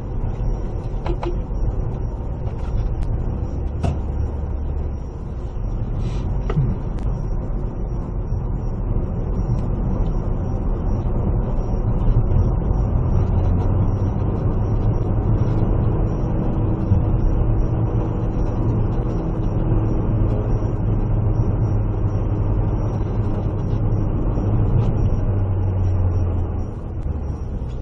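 Road vehicle driving: steady engine hum and tyre-on-road noise, the engine hum growing stronger about halfway through.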